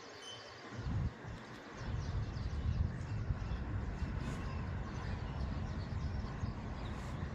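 Wind buffeting the microphone in an open outdoor rumble, starting about a second in and then running steadily, with faint birds calling in the background.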